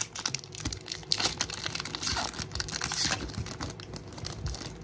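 Foil wrapper of a Pokémon TCG booster pack being torn open and crinkled in the hands: a dense run of crackling rustles and small snaps.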